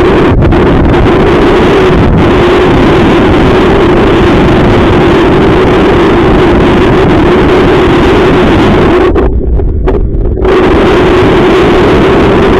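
Strong wind buffeting the microphone, very loud and continuous, over a steady hum; about nine seconds in the higher part of the noise drops away for a second or so, then comes back.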